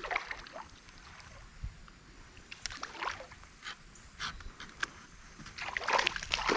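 Scattered small splashes of water and knocks at a kayak, in short irregular bursts that grow busier near the end.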